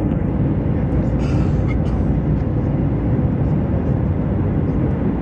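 Steady jet airliner cabin noise: the low, even rumble of the turbofan engines and the airflow, heard from inside the cabin by the window.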